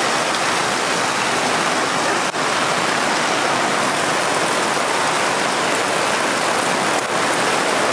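Heavy rain pouring down in a dense, steady hiss, heard from under a camper's awning.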